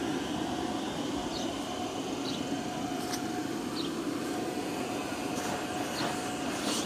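Electric inflation blower of a Little Tikes bouncy castle running steadily, a constant whir with a faint steady hum, pushing continuous air into the bouncer to keep it inflated.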